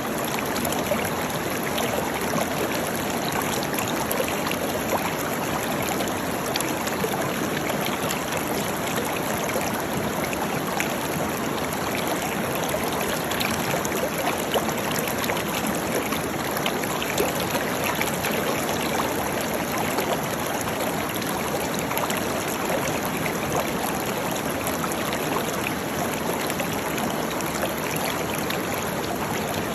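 Waterfall: water falling and splashing steadily, an even rush with fine spattering throughout.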